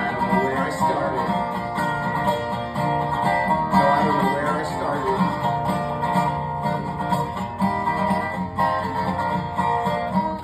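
Instrumental passage of a song with no singing: steady, full music.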